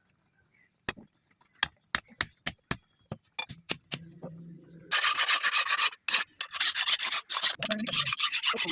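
A series of light, separate ticks, then from about five seconds in a hand file scraping metal in quick, rapid strokes.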